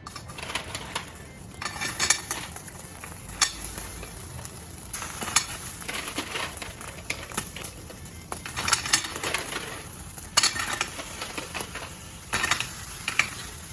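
Manila clams being lowered into a hot pan, their shells clicking and clattering against the pan and each other over a steady sizzle.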